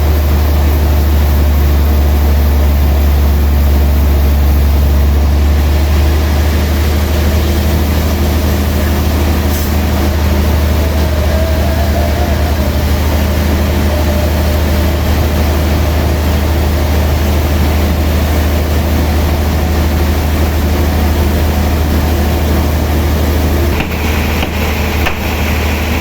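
Heavy sawmill machinery running steadily, a loud constant low hum under a noisy haze, with a brief dip in level and a new higher hiss near the end.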